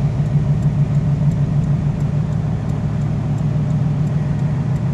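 Steady road and engine drone of a car at highway speed, heard from inside the cabin, with the faint regular ticking of the hazard-light flasher.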